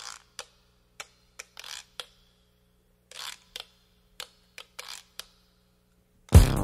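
Irregular sharp clicks and short swishing noises, about a dozen spread over six seconds with silence between them; loud electronic music with a drum beat starts near the end.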